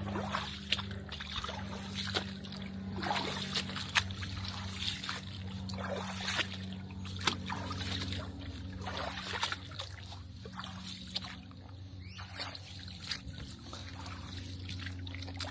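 Footsteps wading through ankle-deep swamp water, sloshing and splashing at an uneven walking pace, over a low steady hum.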